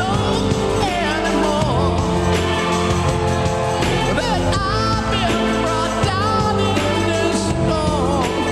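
Rock band playing live, with a male lead vocalist singing over the band in gliding, wavering lines.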